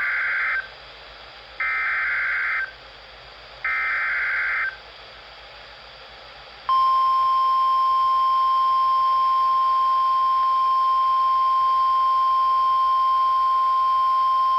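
NOAA Weather Radio alert start: three one-second bursts of screechy digital SAME header data, then, about seven seconds in, the steady 1050 Hz warning alarm tone, held for the rest. Together they signal that a new warning, here a severe thunderstorm warning, is being broadcast.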